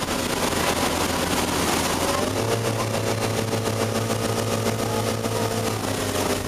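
Motorboat engine running steadily at speed while towing, its drone coming through more plainly from about two seconds in, over the rush of wake water and wind.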